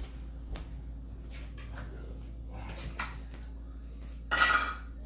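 Scattered clicks and knocks of objects being picked up and handled, with one brief louder sound about four and a half seconds in, over a steady low hum.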